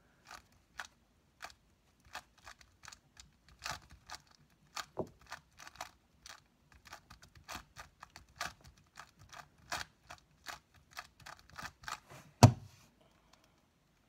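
A 3x3 speed cube's plastic layers being turned one move at a time, about two or three separate clicks a second, as the cube is scrambled between solves. One much louder thud near the end.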